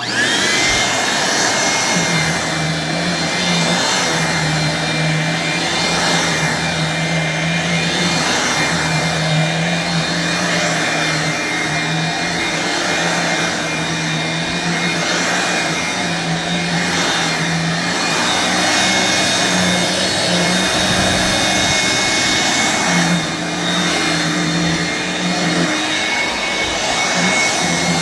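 Vintage 1985 Hoover Brush Vac hand vacuum switched on, its motor whine rising to speed within the first second, then running steadily with a low hum that wavers as it is worked. The sound dips briefly once, about three-quarters of the way through.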